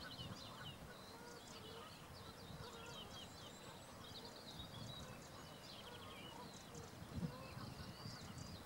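Faint chorus of distant wild birds calling: many short, high chirps with a few lower calls among them, over a low rumble.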